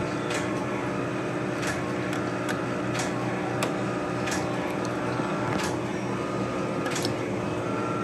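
A steady machine hum with a steady tone, and light clicks about every second as the meter probe tips tap on the furnace control board and its blade fuse.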